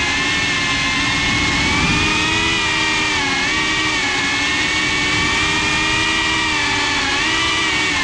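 GEPRC CineLog 35 cinewhoop FPV drone's motors and propellers whining, heard up close from the GoPro on board; the pitch dips and rises with throttle changes, about three seconds in and again near the end.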